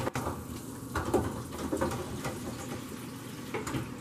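Shrimp frying in an electric deep fryer, the hot oil bubbling and sizzling steadily, with a few light clicks and knocks as the fryer's basket handle and lid are handled.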